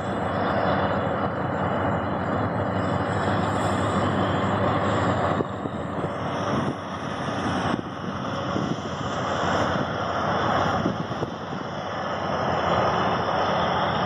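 Preet 987 combine harvester running steadily while cutting and threshing wheat, its engine and threshing gear making a loud, continuous machine noise with a few brief dips near the middle.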